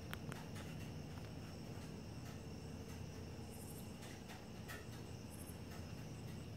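Faint insect calling: a thin, steady high ringing, with two short high buzzes partway through, about three and a half and five seconds in, over a steady low hum.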